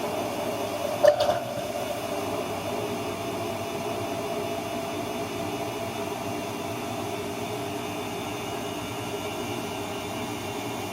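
Bosch washing machine running with a steady motor hum after its drum shock absorbers were repaired, with one brief knock about a second in.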